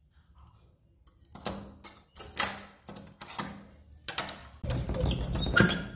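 A bunch of keys jingling and a steel padlock being unlocked and pulled off a door's sliding tower bolt: a string of metallic clicks and rattles starting about a second and a half in. Near the end comes a louder, longer scraping rattle as the bolt is drawn back.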